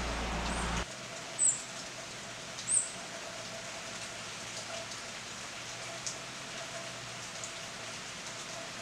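Steady rain falling, with two short, high-pitched bird chips, one about a second and a half in and one nearly three seconds in.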